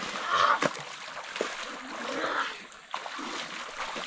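Children splashing through knee-deep floodwater as they wade and play, with a louder splash about half a second in and another around two seconds in.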